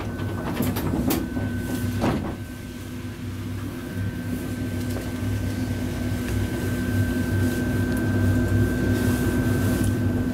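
Streetcar of the Hakodate City tram, car 719, running, heard from inside the car: motor and wheel noise with a steady whine and low hum, building up louder over several seconds after a few knocks near the start.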